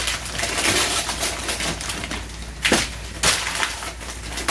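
Crumpled gift wrapping crinkling and rustling as it is pulled and handled out of a cardboard box. There are two sharper snaps of the wrapping a little after halfway.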